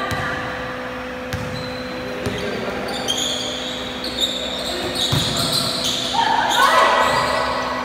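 Basketball being dribbled on a hard court, a few sharp bounces ringing in a large hall, with high sneaker squeaks in the middle and players shouting near the end.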